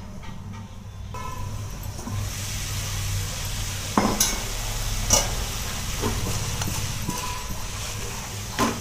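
Spiced cauliflower, potato and pea curry sizzling in a pan on the stove, the sizzle building after about two seconds over a low steady hum. A few sharp metal clinks of lid and utensils come about four and five seconds in and again near the end.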